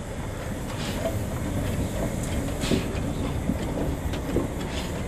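Henschel-built D h2t tank steam locomotive rolling slowly along the track with a steady low rumble. A few louder clanks from its wheels and running gear come about a second in, near the middle and near the end.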